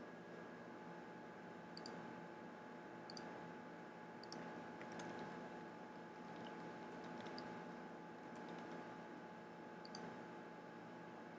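Computer mouse clicks and keyboard typing: a few sharp paired clicks, near the start and near the end, with short runs of quick key taps in the middle, over a faint steady hum.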